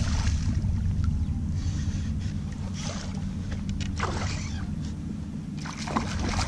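Wind buffeting the microphone in a steady low rumble, with water sloshing against a fishing kayak's hull in short washes several times.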